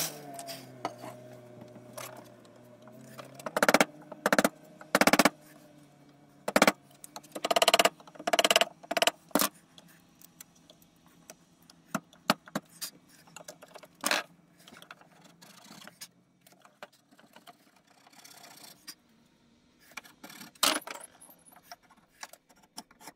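Hand chisel cutting and paring the wooden neck blank to seat the fretboard: a run of sharp cutting knocks and scrapes, thickest between about four and nine seconds in, then scattered single ones. A faint low machine hum runs underneath.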